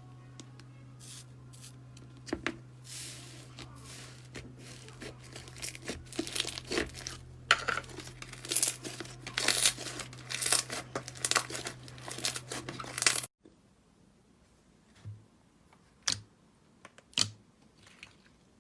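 Slime being stretched and squeezed by hand, making a rapid run of crackles, snaps and pops over a low steady hum. It cuts off suddenly, and after that come a few separate sharp pops.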